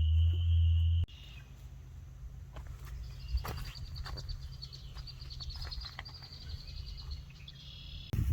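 A steady high-pitched whine over a low hum cuts off suddenly about a second in. Then comes quieter outdoor ambience with a fast, high-pitched trill of rapid chirps lasting about four seconds, and a few faint clicks.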